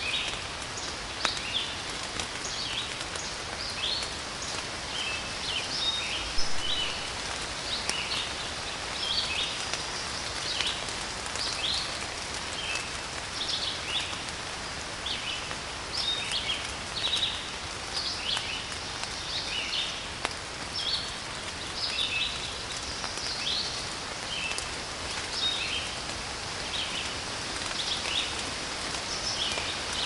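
Steady rain falling, with small songbirds chirping and calling many times throughout; a single dull thump about six seconds in.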